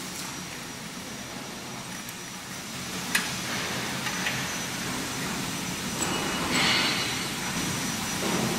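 Steady machinery hum in a factory hall, with a sharp click about three seconds in and a brief rattling clatter a little over six seconds in, as a plastic cable drag chain is handled on a welding column boom.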